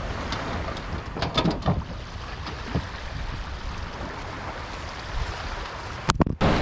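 Small waves washing onto a sandy beach, with wind on the microphone and a few soft knocks. Near the end the camera is grabbed and handled, giving a short burst of sharp clattering.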